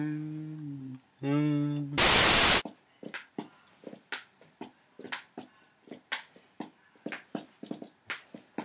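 A man's drawn-out 'ahh' held on one pitch, broken for a moment and picked up again, then cut off about two seconds in by a short burst of loud hissing static. After that comes a run of light, irregular clicks and taps.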